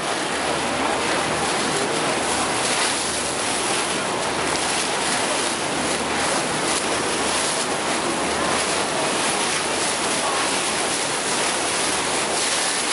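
Steady rush of wind and water from a moving river cruise boat, with wind buffeting the microphone and a faint low hum underneath.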